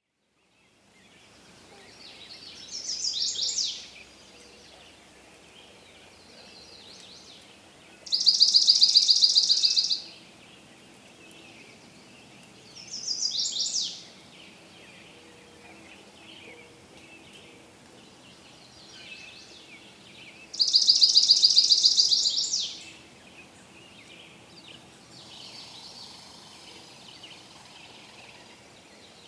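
Forest ambience with birdsong: four loud bird phrases, two short falling calls and two longer, rapid trills, over faint distant chirping and a steady low hiss.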